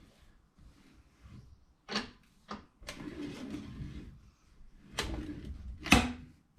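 Sharp metal clicks and scraping as a used spin-on oil filter's steel can is cut open with a filter cutter tool. The loudest click comes near the end.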